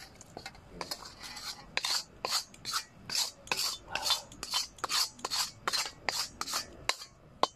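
Wooden spatula scraping the inside of an iron wok in quick, even strokes, about three a second, pushing the last of a stir-fry out into a pot.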